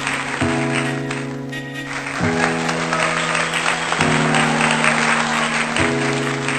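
Background music: sustained chords that change about every two seconds over a busy, hissing upper layer.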